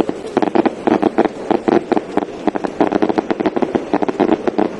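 Fireworks barrage going off in a rapid, continuous string of loud pops and crackles, many reports a second.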